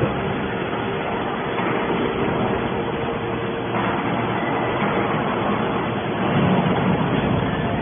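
Hydraulic scrap metal baler running: a steady machine hum from its motor and hydraulic pump under a continuous rushing noise, swelling slightly about six and a half seconds in.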